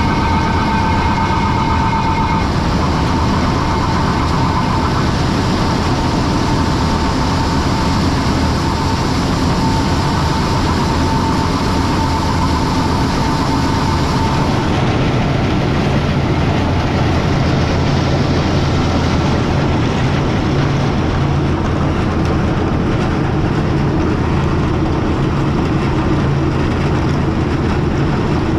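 Heavy diesel farm machinery running steadily at harvest work, a dense continuous drone. A steady high whine sounds over it for the first half and stops about halfway through, where the mix of machine noise changes.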